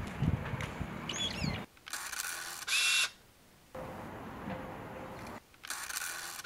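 Camera shutter clicks twice, about two and a half seconds in and again near the end, each a short burst with a brief high tone, over faint outdoor ambience.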